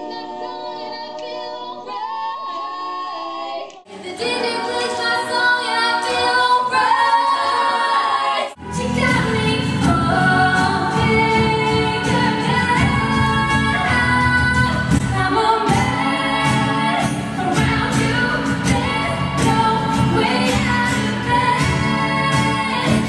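Female voices singing in close harmony. The sound changes abruptly twice as edited clips follow one another: the first few seconds are voices only, then from about nine seconds in a live band joins, with acoustic guitars and a cajón under the voices. Near the end a lead soprano holds C#5.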